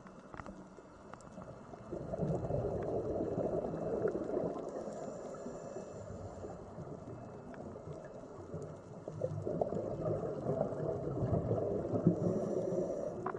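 Underwater bubbling and muffled rushing water. It swells in two long stretches, one starting about two seconds in and another near nine seconds.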